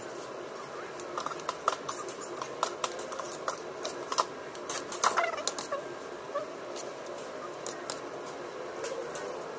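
Metal spoon clinking and scraping against a bowl and plate while eating: a run of short sharp clicks, the loudest cluster about five seconds in.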